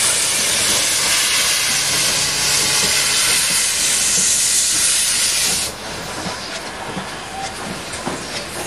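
Steam locomotive letting off steam in a loud, steady hiss that cuts off suddenly about six seconds in, leaving a quieter background with light clicks.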